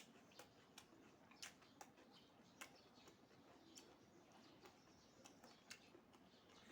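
Faint eating sounds: irregular small mouth clicks and smacks of someone chewing food, close to the microphone, over near silence.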